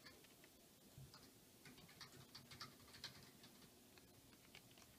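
Faint typing on a computer keyboard: scattered, irregular keystroke clicks.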